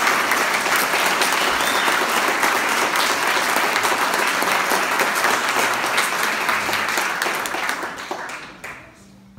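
Audience applauding, a dense steady clatter of many hands clapping that dies away near the end.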